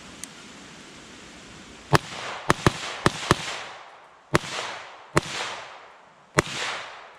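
Eight 9mm shots from an AR-15-pattern pistol with a 7-inch barrel, fired at an uneven pace with some quick doubles. Each crack is followed by an echo that dies away over about a second.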